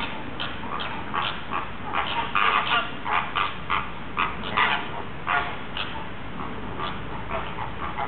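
A flock of flamingos honking: many short calls, overlapping and irregular, several a second.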